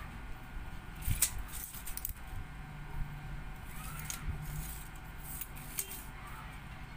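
Retractable steel tape measure being pulled out and handled along a wooden frame: scattered sharp metallic clicks and light rattles.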